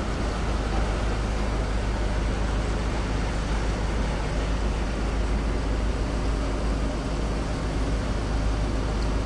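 Steady noise aboard a car ferry under way: a constant low engine rumble under a wash of wind and water noise.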